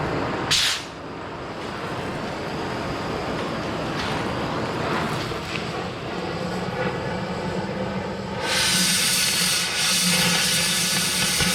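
Oxy-fuel cutting torch hissing steadily as it cuts the steel core barrel. A short, sharp burst of hiss comes about half a second in, and about eight and a half seconds in the hiss turns louder and brighter and holds.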